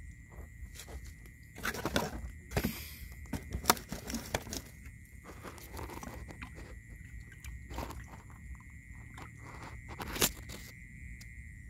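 Bare hands digging into dry, clumpy mud, with irregular crunching and scraping and sharp clicks as clods break apart, densest about two to four seconds in and with one louder crunch near the end. A faint steady high tone runs underneath.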